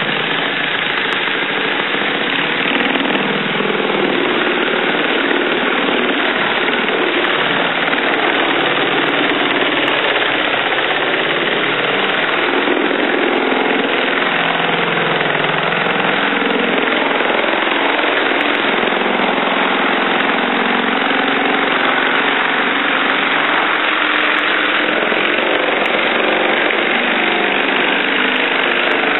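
Milwaukee Super Sawzall reciprocating saw running continuously, driving a homemade sanding head back and forth against drywall joint compound.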